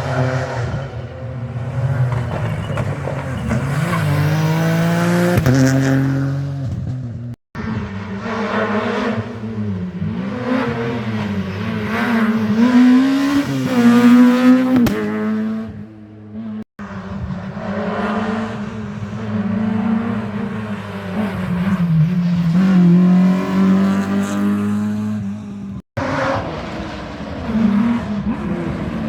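Rally cars at full throttle on a special stage, engines revving high and rising and falling in pitch through gear changes, in four separate passes joined by abrupt cuts.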